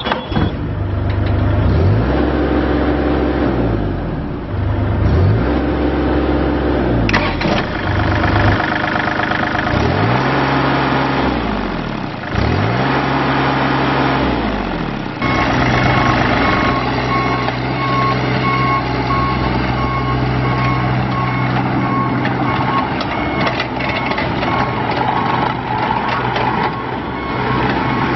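Diesel engine of a 2013 Bobcat E35M mini excavator running, its pitch swinging up and down several times. About halfway through the engine settles into steadier running, and a repeating beep from the machine's alarm sounds over it.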